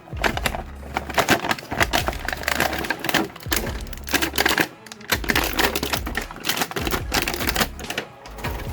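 Quick, irregular runs of hard plastic clicks and rattles, with short lulls about three and a half and eight seconds in: an action figure and its plastic packaging being handled.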